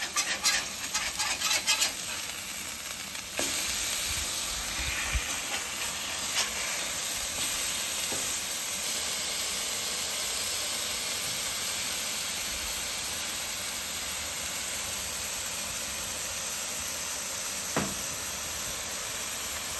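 Lamb burger patties sizzling on a hot steel flat-top griddle just after flipping: a steady hiss of frying meat that gets louder a few seconds in. A few spatula clicks and scrapes on the griddle plate come in the first two seconds.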